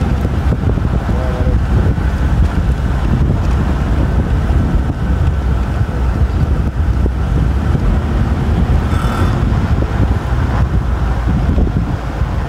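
Car driving slowly over desert sand, heard from a microphone held outside the window: heavy wind buffeting the microphone over a steady low rumble of the car and its tyres.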